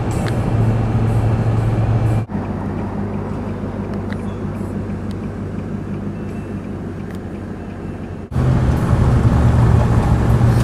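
Steady drone of a car driving on the road: low engine hum with tyre and road noise. It breaks off briefly twice, about two and eight seconds in, and is quieter between the breaks.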